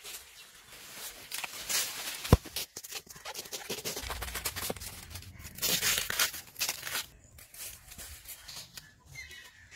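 Knife cutting and tearing through the soft, fibrous layers of a banana plant trunk: irregular crisp tearing and scraping strokes, with one sharp click about two seconds in.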